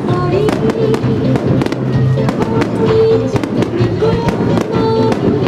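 A starmine fireworks barrage: many shells bursting in quick succession with sharp bangs and crackling, over music with held notes of a melody.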